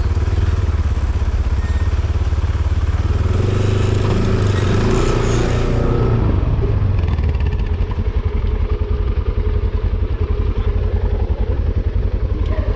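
ATV engine running, with a stronger, higher-pitched stretch of a couple of seconds about four seconds in, then settling back to a steady low rumble.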